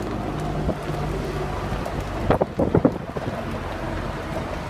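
Vintage trolley car running along the rails at speed with a steady low rumble and wind rushing through the open cab window. A quick cluster of sharp clacks comes about two seconds in.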